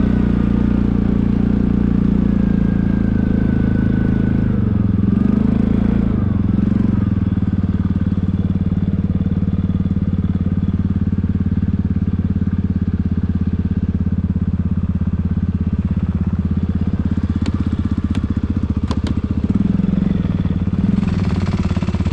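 Quad bike (ATV) engine running as the quad rides along, its pitch wavering up and down over the first few seconds and then steady. A few sharp clicks come about three-quarters of the way through.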